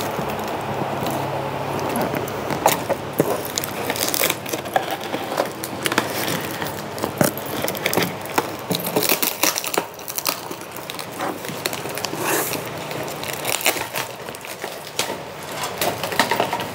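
Cardboard shipping box and an orange plastic protective crate being handled and pulled apart: rustling and scraping of cardboard with many scattered clicks and knocks of plastic.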